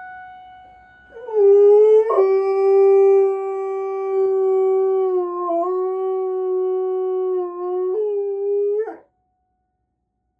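A dog howling in one long, mostly level-pitched howl of about eight seconds, with a brief wobble midway and a higher step near the end before it breaks off. A dog howling at an emergency siren.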